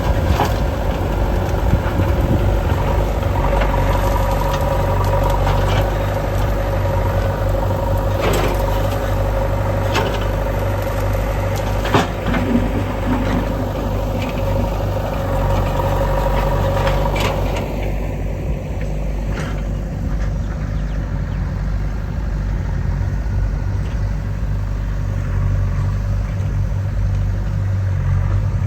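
Engine running steadily, with a whine that stops about two-thirds of the way through and several sharp knocks scattered across it.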